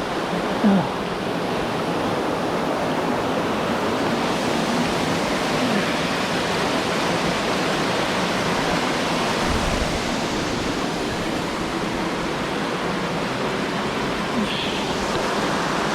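Waterfall pouring into a pool: a steady, unbroken rush of water.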